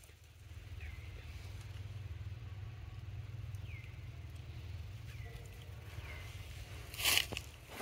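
Outdoor ambience: a steady low hum, with a few faint short high chirps spread through it. A brief loud rustle or scrape comes near the end.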